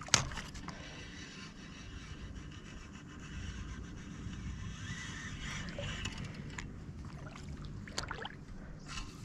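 Steady low wind and water noise, with a sharp click just at the start and a few softer clicks later from handling the fishing rod and spinning reel.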